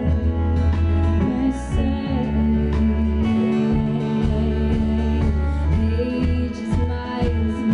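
Live folk-rock band playing: acoustic and electric guitars, cello and drums, with a woman singing.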